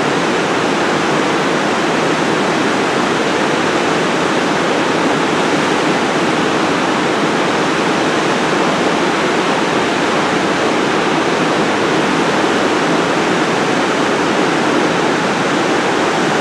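Whitewater rapids of the Niagara River rushing, a loud, steady, unchanging noise of churning water.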